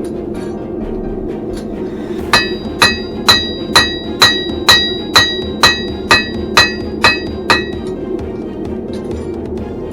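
Hand hammer striking hot steel on an anvil, about a dozen ringing blows at a steady two per second that start a couple of seconds in and stop about three-quarters of the way through. A steady low roar runs underneath.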